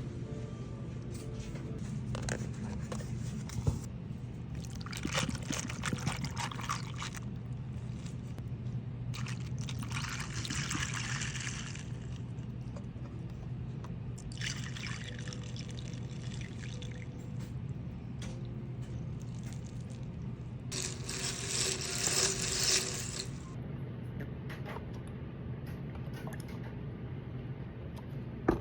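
Yakult and bottled green tea being poured into a plastic cup of ice, in four separate pours of a few seconds each. A steady low hum runs underneath, and there is a sharp click about four seconds in.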